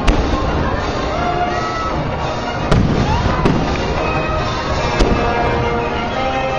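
Aerial firework shells bursting: sharp bangs right at the start, again a little under three seconds in and about five seconds in, over music that plays throughout.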